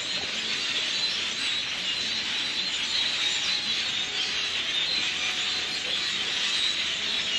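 A large flock of birds in the trees calling all at once, a steady, dense mass of high chirps and chatter; the birds are taken for starlings.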